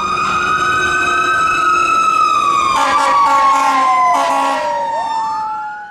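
Fire engine siren wailing, with overlapping tones slowly rising and falling in pitch, and some brief noise midway.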